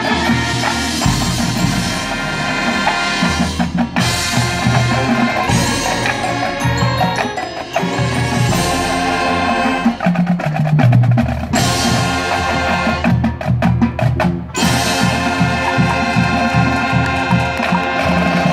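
Marching band playing: saxophones, trumpets and clarinets over percussion keeping a steady beat.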